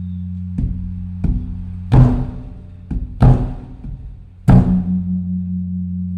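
Large Thai temple evening drum (klong laeng) struck with a beater: six uneven strikes, three of them heavy and ringing, over a steady low hum. The beating is the temple's signal announcing the eve of the Buddhist holy day.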